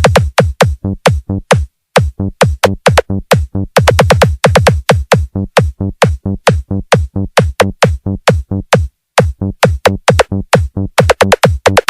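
Electronic dance music from a DJ mix: a fast run of drum-machine hits, about four a second, each sweeping sharply down in pitch, broken by short gaps about two seconds in and near nine seconds.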